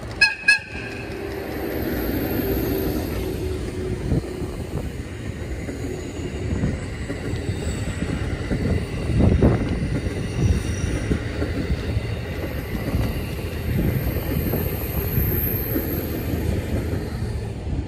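A JR EF81 electric locomotive passes close by, towing a train of unpowered 215 series double-deck cars, with the last of its horn blast right at the start. Steady rumble of wheels on rail follows, with rail-joint knocks, the loudest about nine seconds in.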